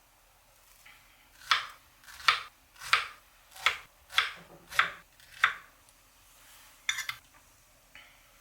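Knife slicing through food and striking a cutting board, seven even strokes about two-thirds of a second apart, then a couple of light clicks near the end.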